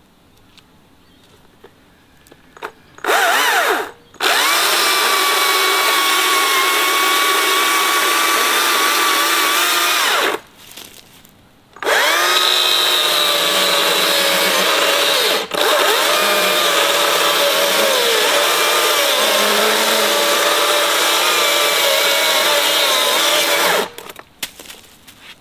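Stihl battery-powered electric chainsaw cutting into a small she-oak trunk: a short blip of the trigger about three seconds in, then a steady motor whine with chain noise in three long runs, stopping for about a second and a half about ten seconds in and briefly again about fifteen seconds in. The pitch sags and wavers as the chain works through the wood.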